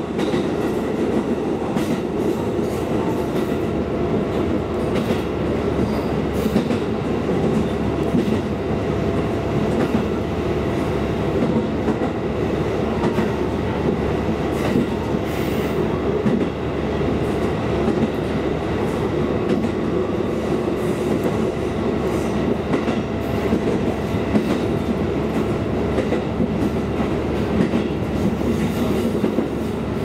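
KiHa 220 diesel railcar running along the track, heard from inside the cab: steady engine and wheel noise, with occasional clicks as the wheels cross rail joints.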